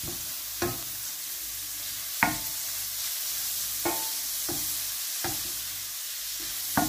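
Grated carrots and onions sizzling in oil in a stainless steel frying pan, with a steady hiss. A wooden spoon stirs them and knocks against the pan about six times at irregular intervals, each knock with a short metallic ring.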